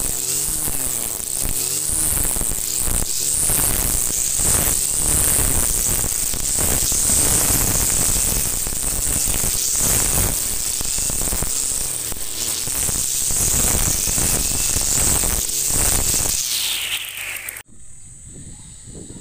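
Kawasaki TJ45 two-stroke brush cutter running at high revs while trimming grass, its pitch wavering as the load changes. Near the end the engine winds down in pitch, then the sound cuts off suddenly.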